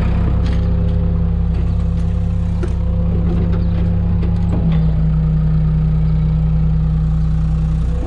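Old telehandler's engine idling steadily as it warms up on a cold snowy morning; the tone of the idle shifts slightly about halfway through.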